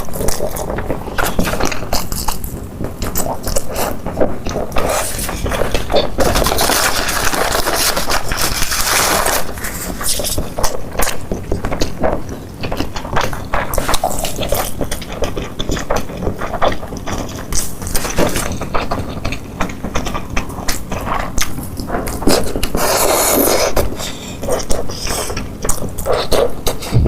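Close-miked eating sounds: sticky wide noodles in sesame paste being slurped and chewed, with wet mouth clicks throughout and louder slurps about seven seconds in and again near the end.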